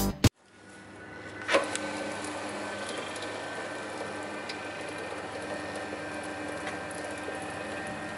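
Roller glue spreader starting up: a clunk about a second and a half in, then its electric drive and glue rollers running with a steady mechanical hum.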